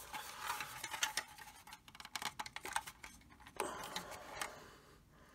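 Hard plastic parts of a 1991 Bucky O'Hare Toad Croaker toy being worked by hand: faint scratchy clicks and creaks as the left engine half is pressed against the body without snapping fully into place, which the builder puts down to the age of the plastic. The handling noises die away about four and a half seconds in.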